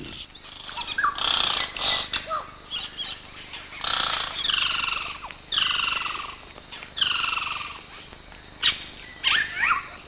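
Yellow-rumped caciques calling at a nesting colony: a scatter of short chirps and clicks, then three longer harsh calls about a second and a half apart, each falling slightly in pitch, and more quick chirps near the end.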